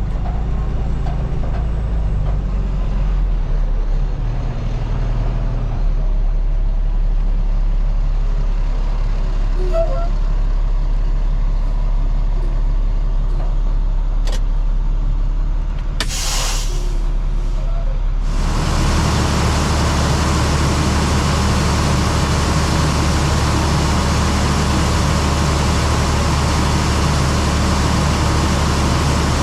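Heavy engine running steadily, with a short hiss about 16 seconds in. About 18 seconds in, a louder, steady rushing machine noise starts and carries on.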